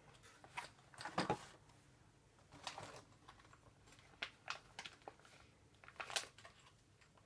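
Faint, irregular light clicks, taps and rustles of packaged bicycle parts and their wrapping being handled and unpacked.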